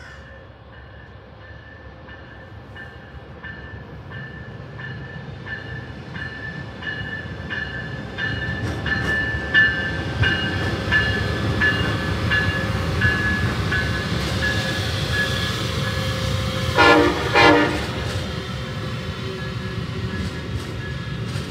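Amtrak passenger train headed by Siemens ALC-42 Charger diesel-electric locomotives passing close by. Its engine and wheel noise grows louder over the first ten seconds, with a ding repeating about twice a second. About 17 seconds in the horn sounds two short blasts, while the coaches roll on with a steady rumble.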